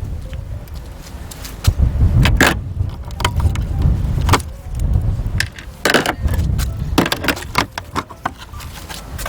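Irregular metallic clicks and clinks over low, uneven rumbling, as of hand tools and parts being handled.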